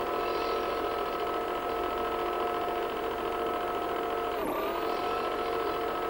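Home-movie film projector running with a steady mechanical whirr and hum; the hum sags briefly in pitch about four and a half seconds in, then steadies again.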